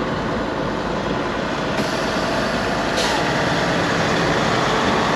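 Semi truck's diesel engine running, heard from inside the cab and growing slowly louder, with short hisses of air about two and three seconds in.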